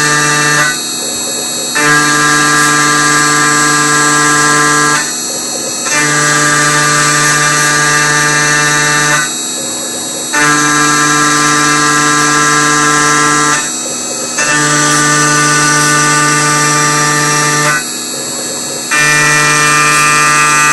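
CNC router facing a block of aluminium. A steady high spindle whine runs throughout. Over it, a pitched machine hum sounds for each pass of about three seconds, drops out for about a second between passes, and repeats about every four seconds.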